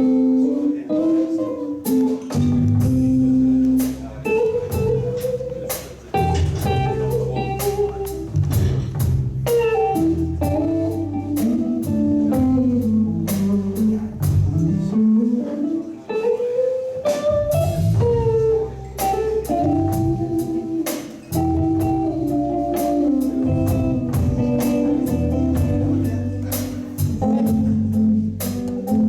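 Live blues band playing a slow song: an electric guitar lead with sliding, bent notes over bass and a drum kit.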